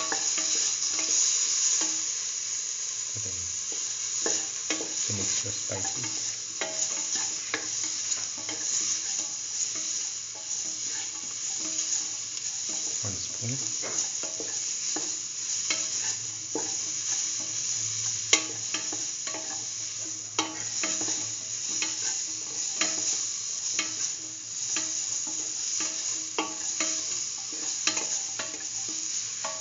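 Diced red and green bell peppers, green chilies and garlic sizzling in oil in a stainless steel pan, with a steady high hiss. They are being stirred, the utensil scraping and clicking against the metal many times.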